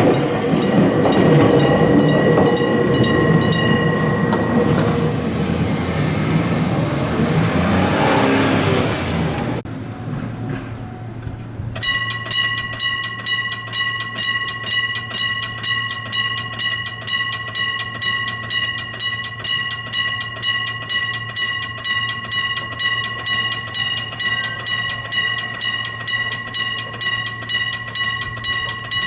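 A train running past over a level crossing while the crossing's electric bell rings under it. After a cut, the electric bell of a Japanese level crossing (電鈴) rings alone, with rapid, evenly repeated metallic strokes.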